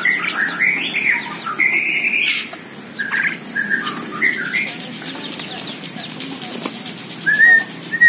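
Tame mynas calling as they crowd around a feed bucket, with a string of short squawks and whistled notes. A longer steady whistle comes about two seconds in and a rising whistle near the end.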